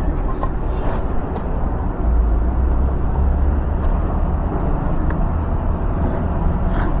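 Steady, low motor-vehicle rumble with a loud bottom end, swelling about two seconds in.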